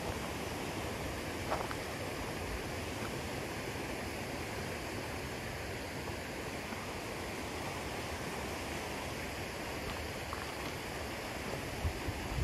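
Steady rushing noise with a couple of faint clicks.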